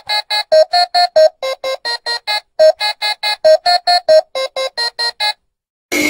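A quick melody of short, evenly spaced electronic keyboard notes, about four or five a second, that stops a little past five seconds in. Just at the end a loud, noisy burst of another effect begins.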